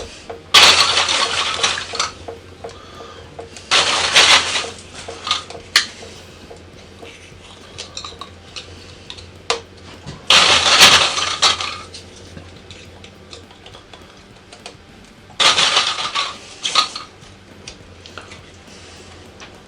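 Handfuls of plastic milk bottle lids clattering as they are tipped onto a grill, in four rattling bursts of a second or two each, with small clicks of single lids in between.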